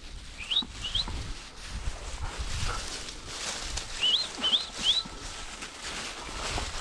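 Footsteps crunching and swishing through dry grass cover, with five short high chirps that sweep upward, two about half a second in and three more around four to five seconds in.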